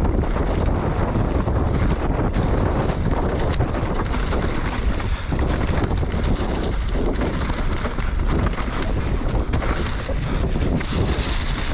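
Wind rushing over the microphone of a mountain bike descending fast, with tyre noise on the dirt trail and frequent rattles and knocks from the bike over rough ground.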